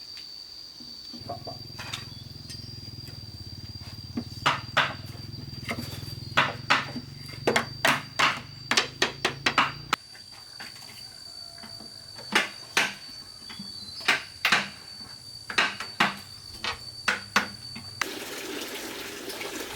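Irregular sharp knocks and taps, often two or three close together, as when bamboo is struck or worked by hand. Under them runs a steady high-pitched insect drone, and a low hum through the first half.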